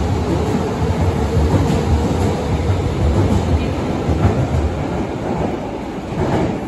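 Kyoto Municipal Subway train pulling out of an underground station, its wheels rumbling on the rails as the cars run past. The rumble fades near the end as the last car leaves into the tunnel.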